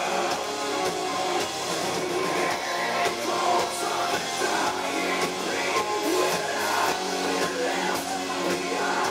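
Melodic death metal band playing live: distorted electric guitars, bass and drums with a singer's voice over them.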